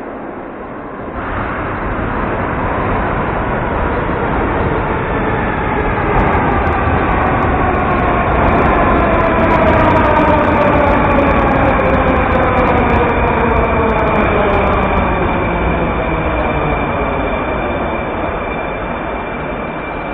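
Metro train running into the station and braking to a stop, its motor whine falling steadily in pitch as it slows.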